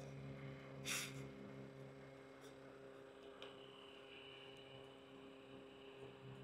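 Quiet outdoor ambience with a steady low hum. There is a short rustle about a second in, a few faint crackles from a small wood-burning stove, and a thin steady high tone from about three and a half seconds in.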